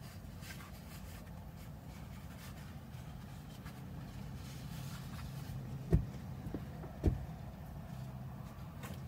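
Light rustling and crinkling of a food wrapper being handled, over a steady low hum. Two short dull thumps, the loudest sounds, come about six and seven seconds in.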